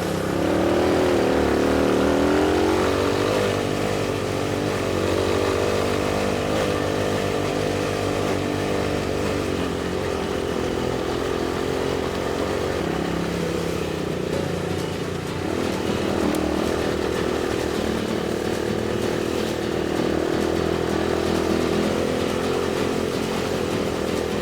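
ATV engine running under way on a ride, the revs dipping and climbing again about a second in, then holding fairly steady.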